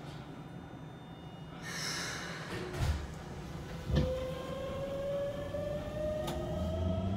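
Inside a Keikyu 600 series car: a short burst of air hiss and two thumps, then the Mitsubishi GTO-VVVF inverter and traction motors start a slowly rising whine as the train pulls away from a standstill.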